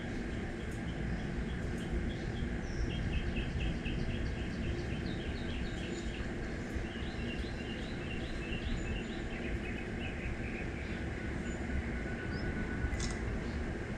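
Outdoor backyard ambience: a steady low rumble with high, quick chirps in repeated runs through most of it.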